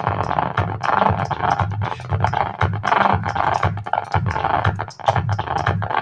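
Music playing through a TDA2050 amplifier board into two small satellite speakers and a Samcon subwoofer, with a strong, rhythmic bass line.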